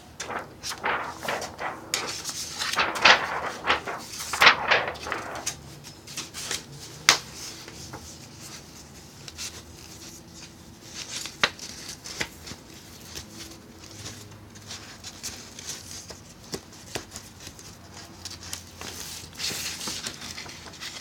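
Sheets of x-ray film being handled and flipped through: crackly plastic rustling and flexing with sharp clicks, heaviest in the first few seconds, then lighter, scattered rustles with another burst near the end.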